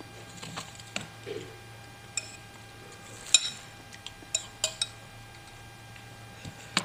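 Spoon clinking against a bowl, several sharp separate clinks, the loudest about three and a half seconds in ringing briefly. A low steady hum sits underneath.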